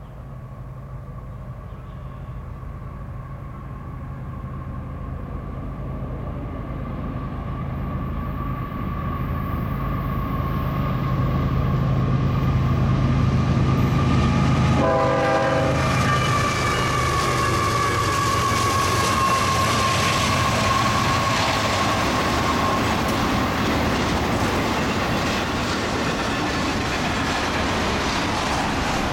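A CSX freight train led by three GE diesel locomotives approaches and passes at speed. The engine drone builds steadily as it nears. The crew sounds the horn as the lead units go by, the horn sagging in pitch as they pass, and then comes the heavy rumble and clatter of double-stack intermodal cars rolling past.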